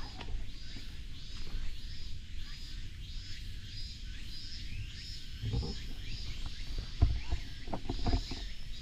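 Outdoor woodland ambience: a high chirping call repeating about twice a second, over a low rumble, with a few soft knocks, the sharpest about seven seconds in.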